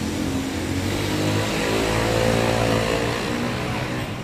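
A motor vehicle's engine running, its pitch rising slightly and falling again around the middle.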